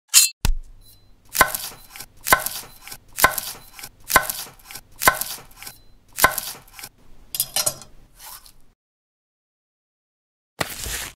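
Chef's knife chopping food on a wooden cutting board: six sharp strokes about one a second, each a knock of the blade on the board followed by a short slicing rasp, then a few lighter scrapes. A short burst of noise comes near the end.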